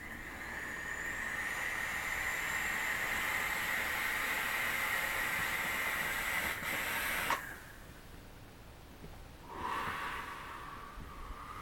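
A long drag on an electronic cigarette mod: a steady airy hiss of breath drawn through the atomizer for about seven seconds, cutting off sharply, then a short breathy exhale of the vapour near the end.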